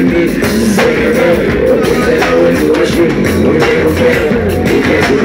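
Live band music played loudly: electric guitar over a drum kit, with no break.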